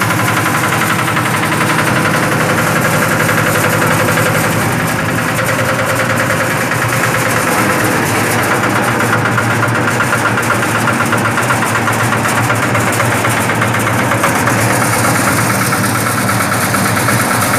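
Yanmar diesel engine running steadily on a Tiger concrete mixer, driving the mixer.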